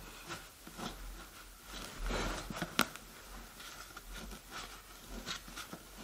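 Carpet tucking tool pushing the edge of a wool carpet under a wooden baseboard: a run of soft, short scraping and rustling strokes, with a louder scrape about two seconds in followed by a single sharp tick.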